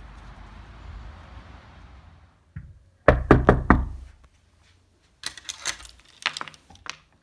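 About four quick, loud knocks on a door. After a pause, a metal door chain lock is slid and rattled as it is unfastened.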